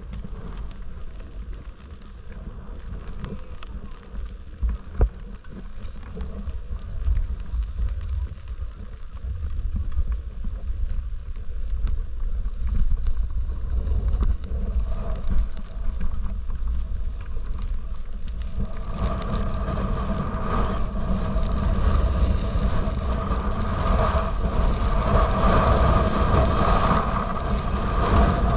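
Wind rushing over the microphone and a snowboard sliding and scraping over snow on a downhill run, a steady low rumble with hiss. It gets louder and brighter about two-thirds of the way through as the rider picks up speed.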